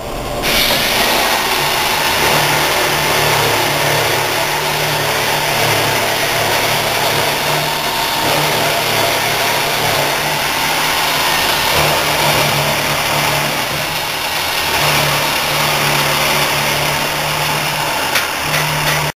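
Vertical milling machine running and cutting metal: a loud, steady machining noise over an even low motor hum, starting about half a second in.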